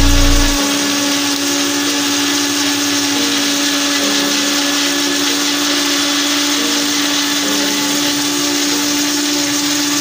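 Electric countertop blender running at a steady speed, its motor giving a constant hum over the whirr of the liquid being churned. A loud low rumble stops about half a second in.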